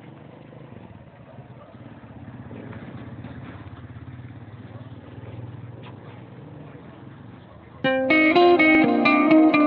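A low engine rumble over street noise, then about eight seconds in a loud electric-guitar music track with distortion cuts in abruptly.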